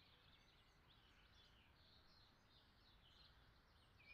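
Near silence, with faint, scattered bird chirps over a low hiss.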